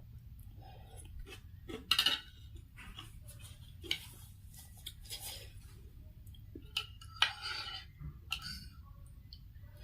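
Close-miked eating of pork noodle soup: utensils clicking against the bowl, with short bursts of slurping and chewing a few times.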